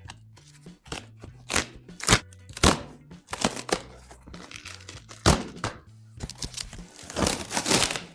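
Corrugated cardboard box being torn open by hand in a series of sharp ripping and crackling tears, with a longer run of tearing near the end. Background music with a low bassline plays underneath.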